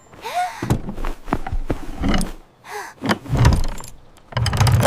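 Cartoon sound effects: a busy run of knocks, thuds and clattering, with a few short swooping squeaks in between.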